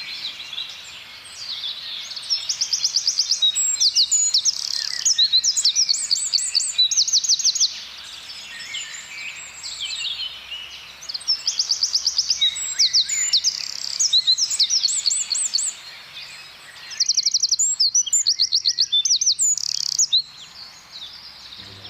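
Eurasian wren singing: three long, loud bouts of very rapid, high trills and quick notes, with softer chirping in the pauses between them.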